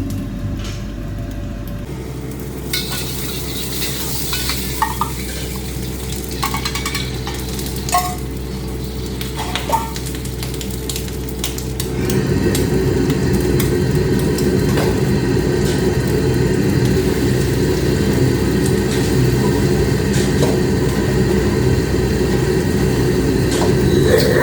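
Stir-frying in a wok: food sizzling while a metal utensil stirs and scrapes, with a few sharp clinks against the pan in the first half. About halfway through the sizzling gets louder and stays steady.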